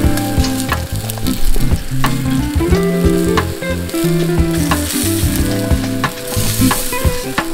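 Meat skewers sizzling over a charcoal grill, with sharp pops and crackles of dripping fat scattered throughout. Background music with a low, stepping bass line plays underneath.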